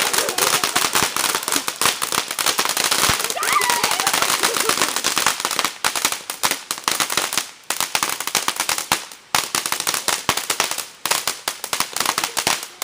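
Firecrackers popping in a rapid, irregular crackle, with a few brief breaks in the second half.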